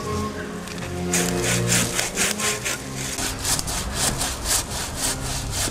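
Hand saw cutting through a thick ice-glazed tree branch, a rapid run of rasping back-and-forth strokes, about four a second, starting about a second in.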